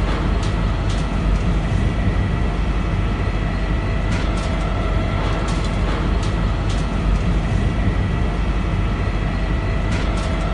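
Heavy machinery running: a steady low rumble with a constant thin whine and occasional sharp clicks.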